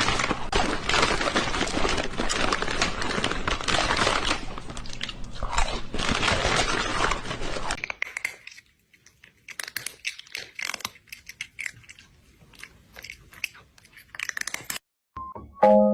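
Crunchy chewing: about eight seconds of dense, rapid crunching, then quieter, separate crunches. A few glockenspiel-like music notes come in right at the end.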